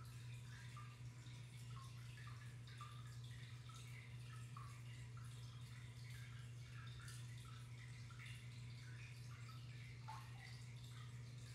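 Faint water in an aquarium trickling and dripping, many small irregular plinks, over a steady low hum.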